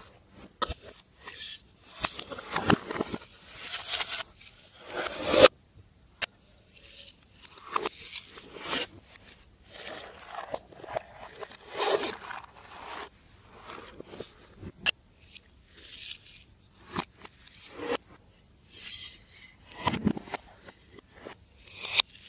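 Glossy slime being handled by hand: irregular sticky crackles, squelches and scrapes with sharp little pops, in uneven bursts.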